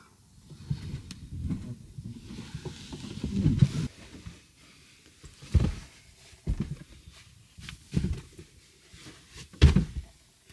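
Bed being made up: duvet and pillows rustling as they are shuffled and spread, with several dull thumps in the second half.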